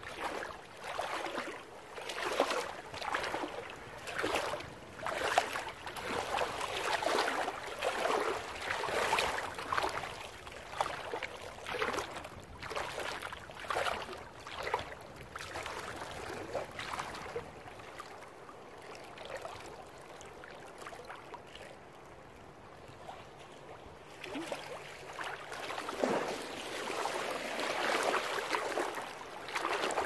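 Small waves washing onto a sandy beach in repeated rushes of noise, easing off for a while in the middle, then a fresh rush of surf near the end. A faint low hum runs under the quieter stretch.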